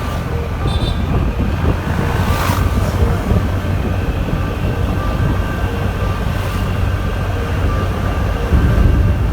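Steady rumbling road and wind noise from a moving vehicle, loud and low, with a brief swell about two and a half seconds in.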